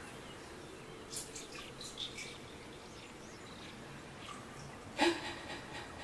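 Soft background ambience track: a steady low hiss of water and wind with a few faint bird chirps and drips. A brief louder burst of noise comes about five seconds in.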